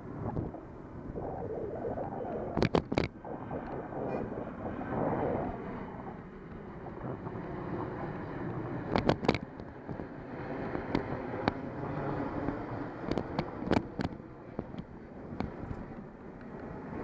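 Wind rushing over the microphone while riding a bicycle, with several sharp clicks and knocks: a pair about three seconds in, another pair about nine seconds in, and a few more around thirteen to fourteen seconds.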